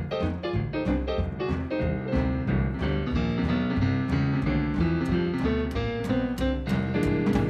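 Early-jazz band playing, with piano chords to the fore on a steady even beat and a bass line underneath.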